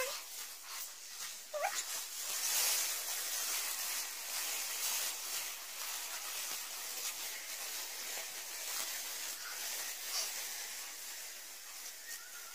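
Footsteps rustling and crackling through dry leaves and fallen palm fronds, with one short rising dog whine about a second and a half in.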